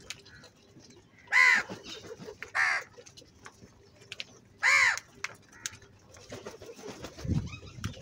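House crows calling: three loud, harsh caws in the first five seconds, over light clicks of beaks pecking grain from a bowl. Low thumps come near the end.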